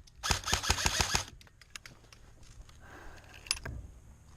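Airsoft electric rifle firing a short full-auto burst of rapid clacks, about ten a second, lasting about a second. After it there is a single click.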